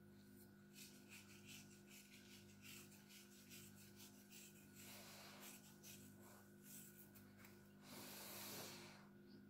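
Faint rubbing and light ticking of fingers crumbling dried seasoning from a spoon and sprinkling it over raw zucchini slices, over a steady low hum, with a louder brushing hiss near the end.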